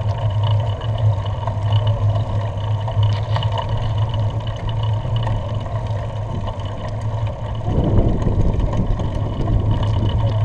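Steady low rumble of wind and riding noise on a bicycle-mounted action camera's microphone while pedalling along a road, with a louder rush of noise about eight seconds in.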